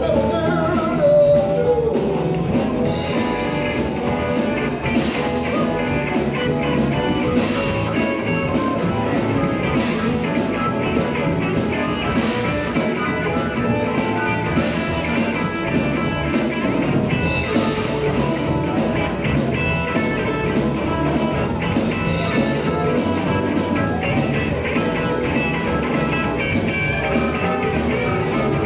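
Live blues-rock band playing an instrumental stretch without singing: electric guitars, bass, keyboards and a steady drum kit beat, with amplified harmonica.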